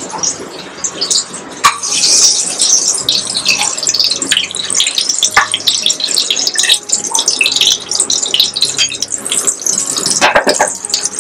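Hot oil sizzling and crackling in a frying pan of fried boiled eggs as they are spooned out into curry gravy, with a few sharp clicks of a spatula against the pan.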